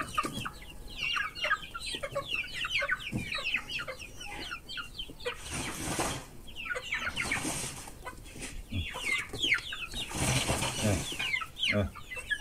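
A flock of young chickens peeping and clucking as they compete for corn, making a steady stream of short falling cheeps. A burst of rustling noise comes about halfway through and again near the end.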